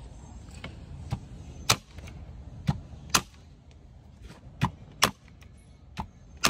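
Bostitch 2-in-1 electric staple gun firing staples through carpet into wooden stair treads: a series of sharp snaps, about seven loud shots at irregular intervals with a few fainter clicks between.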